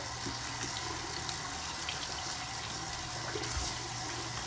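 Tap water running steadily into a bathroom sink, with a few small clicks.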